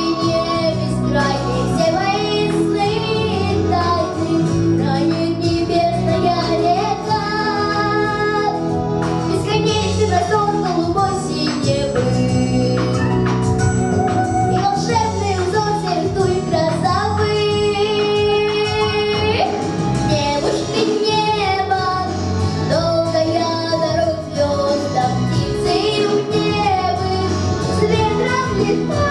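Song with a female vocalist singing a melody over instrumental backing.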